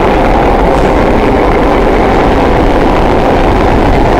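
Vintage subway train running at speed through a tunnel, heard from inside the car: a loud, steady noise of wheels on rails that does not let up.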